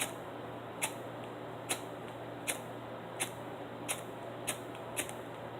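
Flint-wheel lighter being struck over and over, eight short scraping clicks a little under a second apart, without catching a flame.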